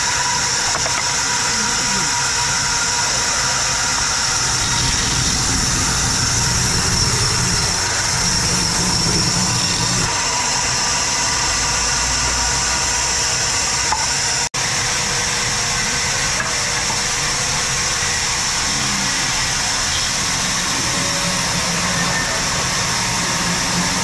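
A large vertical band saw runs steadily while its blade cuts lengthwise through an irregular log slab, with a high, steady hiss over a low motor hum. The sound drops out for an instant about halfway through.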